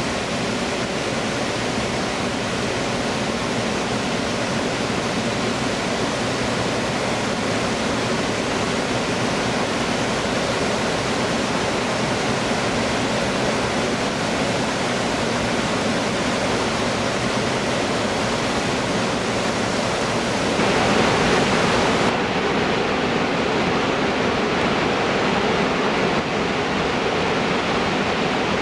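Waterfall rushing in a steady, even roar. About 21 seconds in it grows louder for a moment, then the sound changes abruptly, as at a switch to another shot of falling water.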